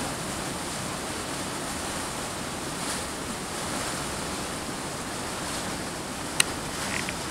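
Waterfall running steadily: a constant rush of water plunging into its pool, with one sharp click about six seconds in.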